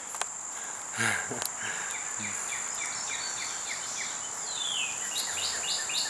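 Steady high-pitched insect buzz from the woods, with a bird singing over it: a run of short repeated chirps from about two seconds in, a falling note, then a louder series of quick repeated notes near the end. A brief low sound about a second in.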